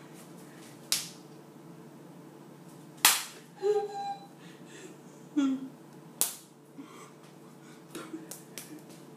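Three sharp single hand claps, about one, three and six seconds in, with short wordless vocal sounds between them and a few softer claps near the end.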